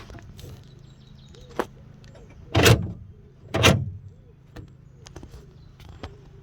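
Aftermarket central-locking actuator in a Volvo 164 door firing twice, about a second apart, each a short motorised clack as it drives the lock rod.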